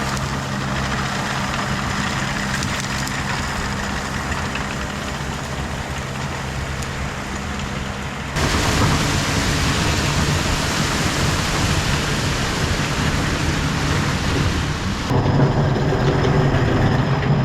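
Compact track loader's diesel engine running steadily, with a broad rushing noise over it. The sound jumps louder abruptly about eight seconds in and again near the end.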